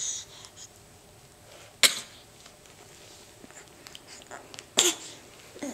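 A baby girl giving two short, sharp coughs about three seconds apart: her coughing trick, done on purpose for fun rather than from illness.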